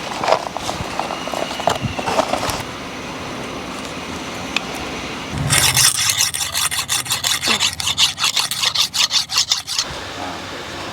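Scattered scrapes and knocks, then about halfway through a fast, even run of rasping strokes, roughly six a second, that stops abruptly shortly before the end.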